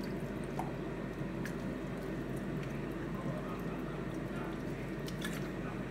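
White cane vinegar poured from a plastic bottle into a stainless steel pot of onions and chillies, a steady stream splashing onto the vegetables over a low steady hum.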